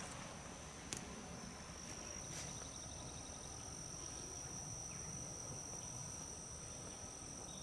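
Insects trilling steadily at one high pitch, with a faint click about a second in.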